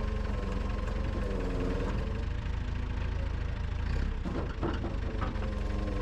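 An engine idling steadily, with a few sharp knocks or clunks around four to five seconds in.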